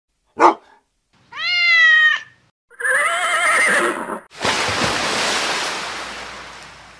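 A run of animal and water sound effects: a brief sharp animal call, a cat's meow, a horse whinnying with a trembling pitch, then a rush of water that slowly fades out.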